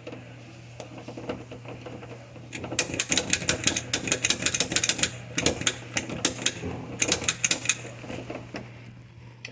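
Lock pick gun snapping at the pins of a doorknob lock: a fast, irregular run of sharp metallic clicks that starts about three seconds in and thins out near the end, as the lock is being picked.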